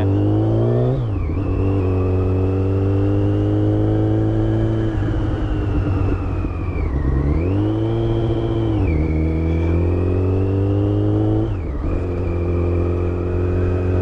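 Yamaha FZ1 inline-four engine running on the move, its pitch climbing and then dropping sharply several times as the throttle is opened and closed. Over the engine sits a steady high whine that rises and falls with engine speed: the mystery whine the owner is chasing, worse when cold and under engine braking, which he has wondered may come from the clutch basket.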